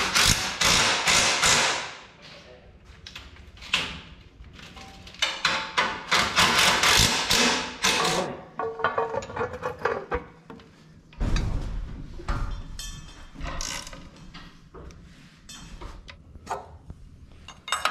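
Hand tools clicking and clattering on metal parts while a radiator is mounted on a race car, in irregular bursts with sharp clicks.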